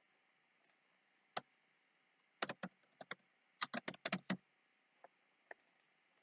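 Computer keyboard typing in short runs: a single keystroke, then two quick flurries of several keys, then two last taps.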